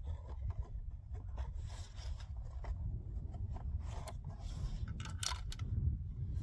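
A few faint scrapes and clicks over a steady low rumble, with a sharper click about five seconds in.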